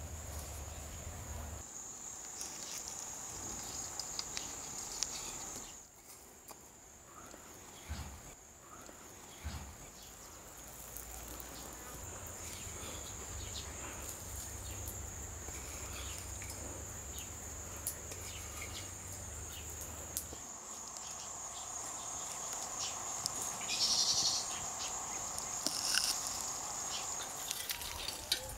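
Insects chirring in one steady high-pitched tone, with scattered small clicks. Near the end come a few louder knocks and scrapes of a hoe chopping into stony soil.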